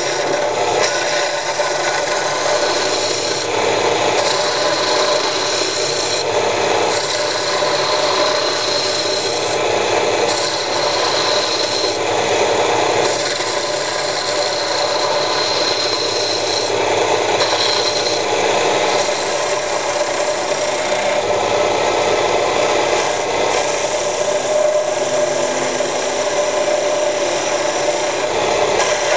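Homemade wood lathe running, driven by an electric motor through a belt, while a hand-held turning tool cuts a small spinning wooden piece: a steady scraping rasp of the cut over a faint steady hum of the machine.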